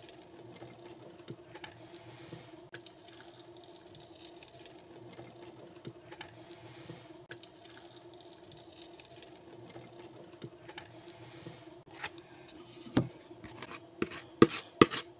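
Thick, thickened liquid soap mixture pouring from a plastic bowl into a plastic tub, a quiet wet sloshing over a steady low hum. Near the end come a few sharp knocks as the bowl is emptied.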